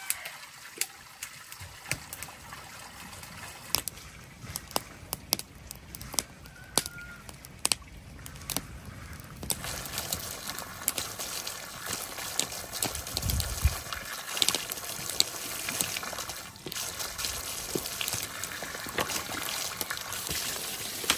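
Water pouring from a hose pipe and splashing onto rocks, a steady trickling hiss that grows louder about halfway through. Scattered sharp ticks and taps sound over it in the first half, and there is one low thump a little past the middle.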